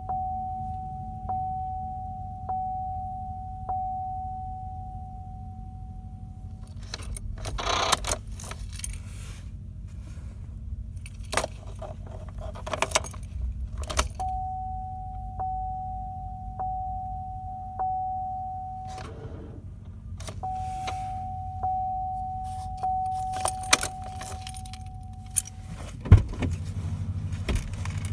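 Vehicle dashboard warning chime dinging about once every 1.2 seconds in three runs, with keys jangling and clicking in between and two thumps near the end. No starter cranking or engine running is heard.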